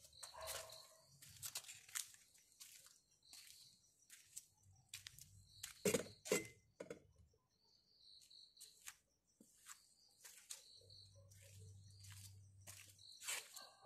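Faint handling noise from a phone held in the hand: scattered clicks and rustles, the loudest pair about six seconds in. Behind it, insects chirp faintly in short repeated high-pitched pulses.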